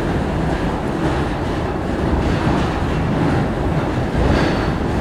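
Sakamoto Cable funicular car running on its rails: a steady rolling noise heard from inside the car as it climbs through a tunnel.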